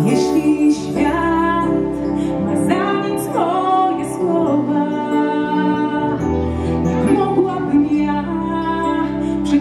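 Live band music: a female vocalist singing, accompanied by piano and keyboards, bass guitar and a drum kit with cymbals.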